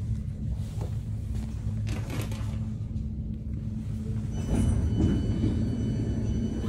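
Steady low hum of a stopped electric commuter train. About four and a half seconds in the sound swells, and a high steady tone sounds for about two seconds.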